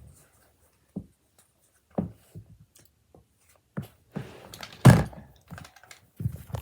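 A series of irregular short thumps and knocks, the loudest about five seconds in, with some rustling around it.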